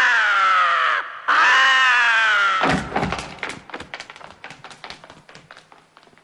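A man screams twice, each scream sliding down in pitch. Then comes a heavy thud and a run of quick taps that fade away.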